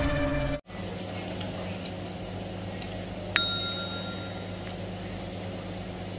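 Tail of intro music cutting off under a second in, then a steady low hum with one sharp clink about three seconds in, ringing briefly as it dies away.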